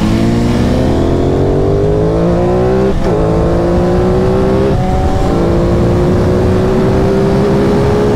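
Aprilia Tuono 660's parallel-twin engine accelerating hard through the gears. The revs climb, drop at an upshift about three seconds in and again near five seconds, then rise slowly.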